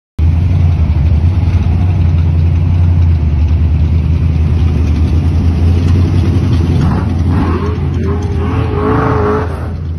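Classic hot rods driving slowly past, their engines giving a loud, steady low exhaust rumble. About seven seconds in, a rising then held higher tone joins the rumble for a couple of seconds.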